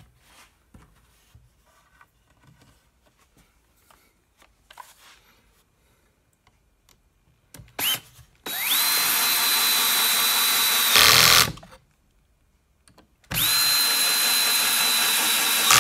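Cordless drill/driver driving two screws into a pine board: twice the motor spins up to a steady whine for about three seconds, the first run ending in a brief louder burst. The first run starts about eight seconds in, the second about thirteen; before them, only faint handling noises.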